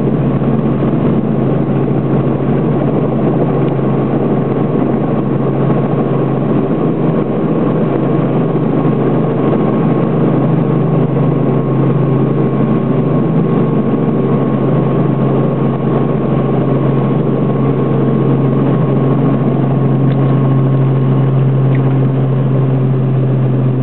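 Helicopter engine and rotor running steadily, heard from inside the cabin as the helicopter descends and settles near the ground.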